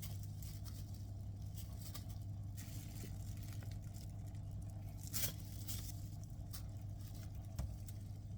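A pet eating food offered by hand: scattered small clicks and smacks, one sharper click about five seconds in, over a steady low hum.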